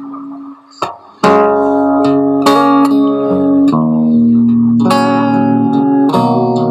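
Acoustic guitar playing an instrumental passage: a held chord dies away, then after a short dip, about a second in, full chords ring out, struck roughly once a second.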